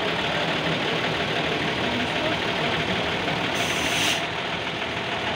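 Competition truck's engine running steadily, with a short hiss about three and a half seconds in.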